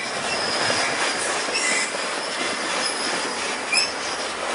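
Amtrak bilevel passenger cars rolling slowly past into a station stop, with a steady rumble of wheels on rail. Two short high squeals come from the train, one partway through and one near the end.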